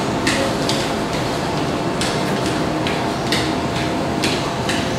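A man doing mountain climbers on a rubber gym floor: quick, short scuffing hisses, about two to three a second, in an uneven rhythm as his feet drive in and out.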